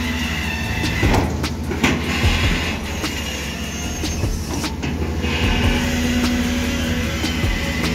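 Hydraulic excavator's diesel engine running steadily under load while the boom and bucket dig in wet mud, with a whine from the hydraulics that fades in the middle and returns. Several sharp metallic clanks from the arm and bucket, a cluster of them between one and two seconds in and another near five seconds.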